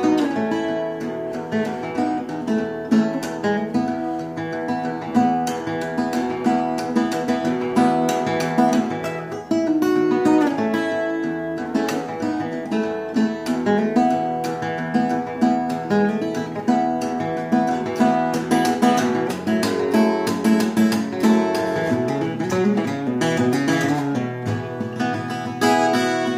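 1967 Martin 0-18 acoustic guitar in drop D tuning, capoed at the second fret, played as a continuous instrumental passage of plucked notes and chords.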